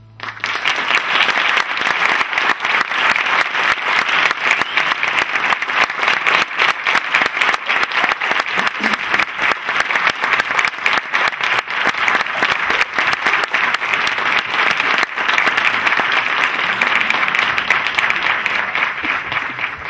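Audience applauding, breaking out the moment the final flute-and-keyboard note ends and tapering off near the end.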